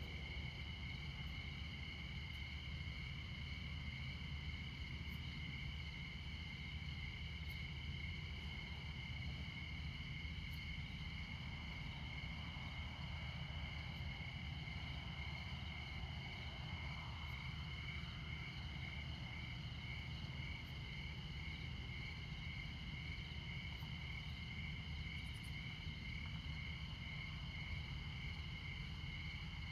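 Crickets chirping steadily, one in a fast even pulse and another in a higher continuous trill, over a constant low hum of distant interstate traffic; a passing vehicle swells and fades about halfway through.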